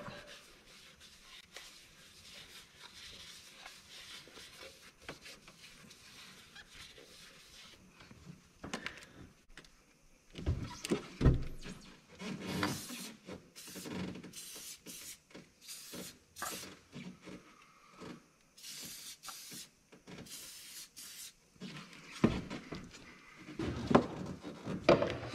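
Magnaflux aerosol can of penetrant dye spraying into an engine's cylinder bore in a series of short hisses, mixed with knocks and rubbing from handling the can among the engine parts. It is the dye stage of a dye-penetrant test for a crack in the cylinder wall.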